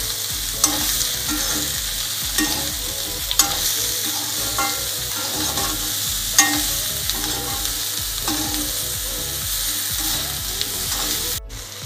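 Potato and cauliflower pieces sizzling in oil in a metal kadhai while a slotted metal spatula stirs and scrapes them, with a sharp clink of spatula on pan every few seconds.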